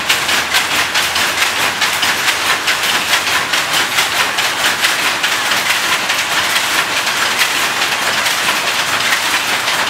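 Old cast-iron power loom running at speed while weaving, a rapid, even mechanical clatter that repeats several times a second over a dense din of machinery.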